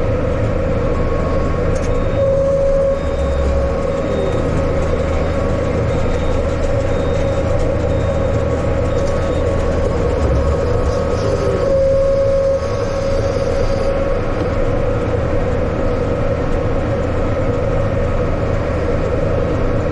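Yanmar tractor engine running steadily, working at raking hay, with a constant whine over its drone.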